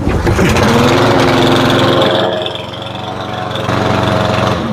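Cub Cadet walk-behind mower's 173cc PowerMore single-cylinder engine starting at once and running steadily, a little rich. It eases off in the middle, picks up again, and dies down at the end.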